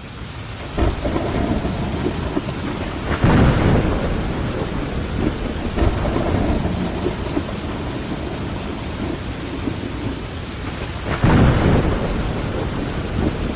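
Steady heavy rain on window glass, fading in over the first second. Two short low rumbles of thunder swell up, about three seconds in and again about eleven seconds in.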